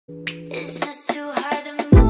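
Intro jingle music: held tones punctuated by about five sharp snapping clicks, ending in a sudden deep bass hit.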